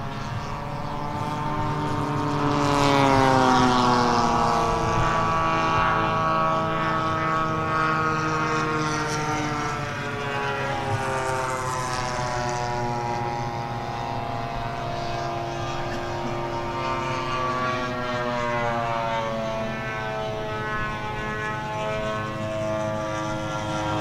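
Radio-controlled model airplane engines running as the planes fly past, the propeller drone rising and falling in pitch with each pass. The loudest pass, about three seconds in, drops sharply in pitch.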